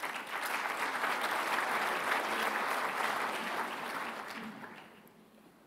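Large audience applauding to welcome a speaker to the podium, the clapping fading out about five seconds in.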